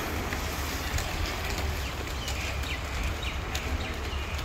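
Several inline skates rolling on a hard court surface, a steady rolling rumble with scattered sharp clicks and knocks from the wheels and skate frames.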